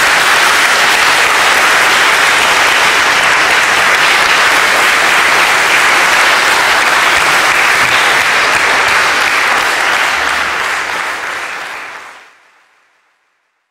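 A large crowd applauding in a steady, dense wash of clapping that fades out near the end.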